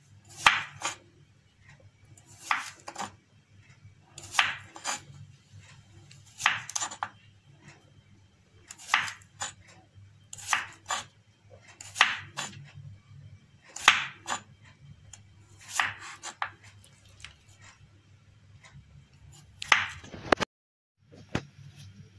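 Kitchen knife slicing through a cucumber and knocking on a wooden cutting board, about ten single cuts spaced roughly one and a half to two seconds apart. A low steady hum runs underneath.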